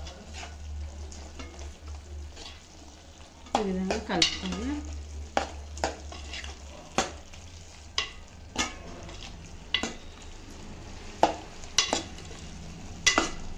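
Metal spoon stirring a thick spinach and potato curry in a metal pan, knocking and scraping against the pan about once a second, over a light sizzle of the curry cooking on low heat and a steady low hum.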